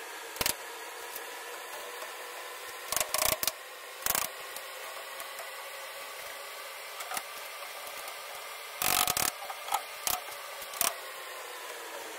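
Plastic panels and snap connectors of a cube storage cabinet being handled and fitted together, giving sharp clicks and knocks in scattered single hits and short clusters, over a steady hum.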